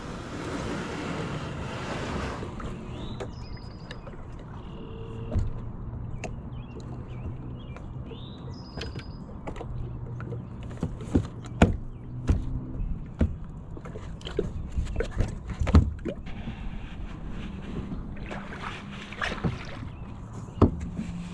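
Kayak being launched and boarded: irregular knocks and bumps of the paddle and gear against the hull, with water gurgling around it.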